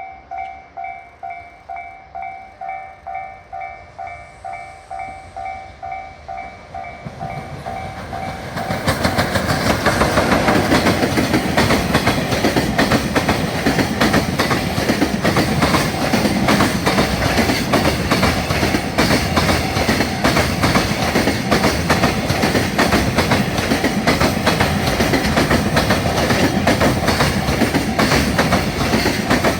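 Japanese level-crossing warning bell ringing, about two dings a second. About eight seconds in, a freight train rushes past close by: a loud steady rumble with wheels clacking over the rail joints, drowning out the bell.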